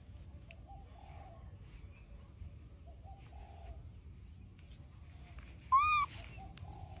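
Doves cooing softly in the background, a low two-part phrase repeated about every two and a half seconds. About six seconds in comes one short, loud call that rises and falls in pitch.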